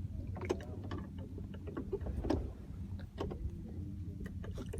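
Steady low hum aboard a small fishing boat, with scattered light knocks and clicks.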